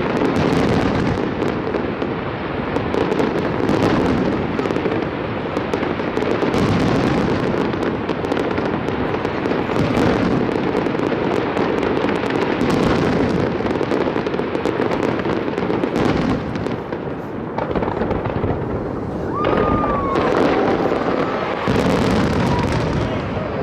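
Aerial fireworks bursting in a dense, continuous barrage, with overlapping booms and crackling and no break.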